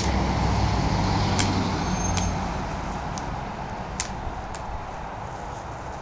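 A low rumble of passing road traffic, loudest for the first two seconds and then fading, with a handful of sharp clicks spread through it that fit a color guard rifle being caught in the hands.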